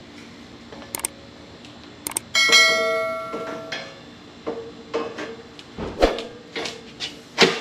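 Knocks and clanks of the steel tubular cargo-carrier frame being handled and fitted together. About two and a half seconds in, after two sharp clicks, a bright metallic ring lasts about a second and a half.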